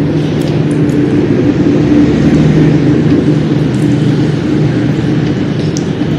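A loud, steady low drone with a faint hum in it, and a few light clicks on top.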